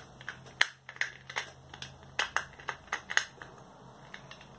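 Faucet seat reamer being turned and worked in a cut-away faucet body, giving an irregular run of short sharp clicks, several a second.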